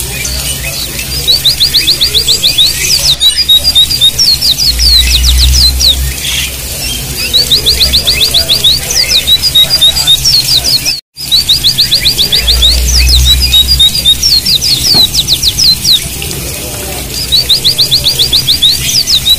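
White-eyes (pleci) singing: phrases of rapid, sharp, high notes, about ten a second, repeating every few seconds, over a steady hiss of flowing water. The sound cuts out for a moment about eleven seconds in.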